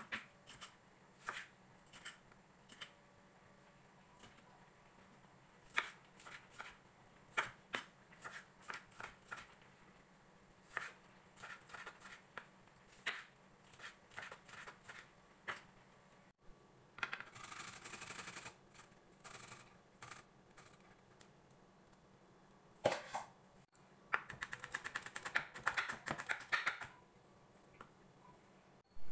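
Kitchen knife chopping tomato and then green chili on a bamboo cutting board: uneven knocks of the blade on the wood, ending in a fast, even run of chops.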